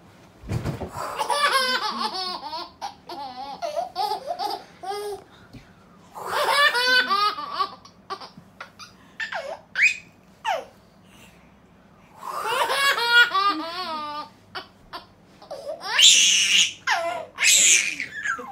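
Baby laughing in four long, pulsing bouts, with short squeals in between.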